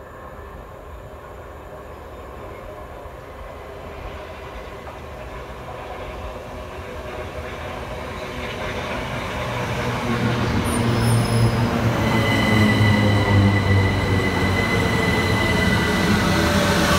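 Southern Class 377 Electrostar electric train approaching, its running noise growing steadily louder. A low hum and steady high whining tones join in over the last few seconds.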